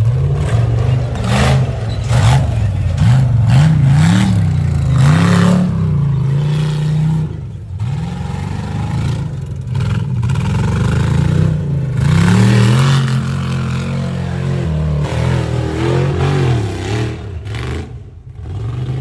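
Side-by-side UTV engine revving up and falling back again and again as it is driven hard off-road, with some clattering.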